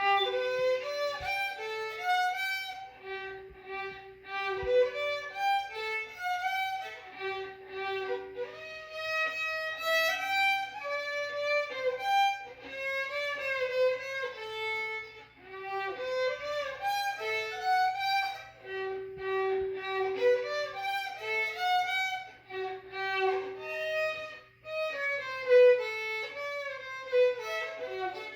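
Solo violin playing a melody, moving note to note with some longer held notes.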